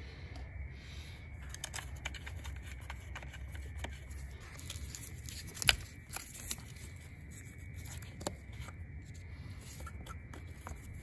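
Hands fitting a hose connector and electrical plug onto a new EVAP purge valve solenoid: light rustling of plastic parts and scattered small clicks. One sharp click a little past halfway is the loudest.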